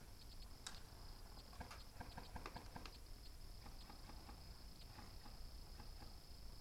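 Faint, irregular clicks and taps, thickest in the first half and thinning later, over a steady faint high hiss.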